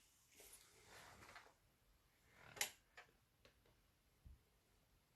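Near silence with a few faint, short clicks and taps in a small room.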